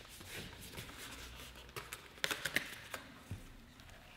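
Cardboard being folded and handled on a desk: dry rustling and scraping, with a short burst of louder crackles about two seconds in.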